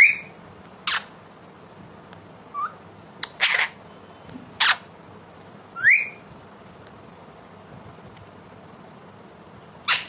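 Alexandrine parakeet calling: a string of short, sharp squawks and two quick rising whistles, then a pause of a few seconds before one more sharp squawk near the end.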